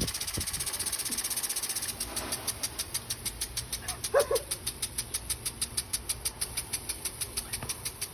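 Impact lawn sprinkler spraying with a hiss and ticking in an even rhythm, faster at first and then about five ticks a second. A short two-part call sounds about four seconds in.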